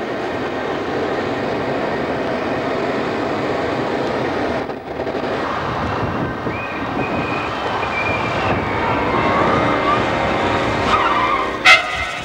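A car driven hard, its engine running loud with the tyres squealing as it brakes and turns, and a sharp knock near the end.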